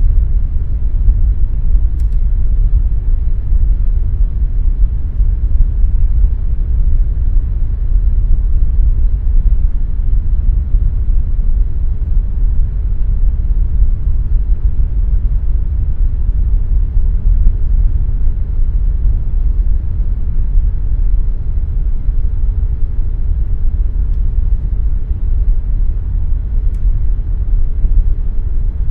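Air conditioner running steadily: a low, even whoosh of moving air with a faint steady hum above it.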